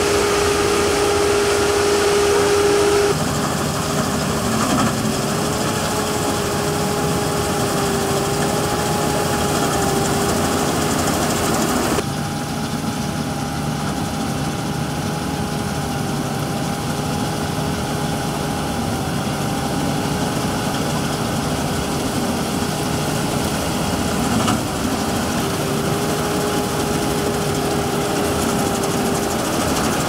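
Combine harvester running while cutting a grain crop: a steady engine and machinery drone with a hum that wavers slightly in pitch. The sound changes abruptly three times.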